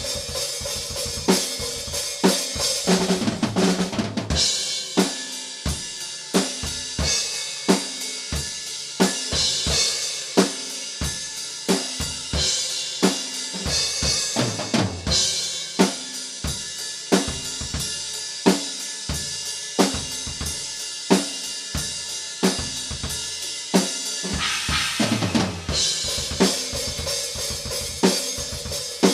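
Acoustic drum kit playing a metal groove alone: a fast bass drum played with a single pedal, snare hits, hi-hat and crash cymbals. Tom fills roll down the kit about three seconds in, around the middle and a few seconds before the end.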